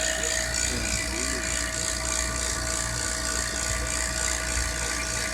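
Refrigerant recovery machine (A/C vacuum pump) running steadily with a constant hum, pulling the old Freon out of a car's air-conditioning system.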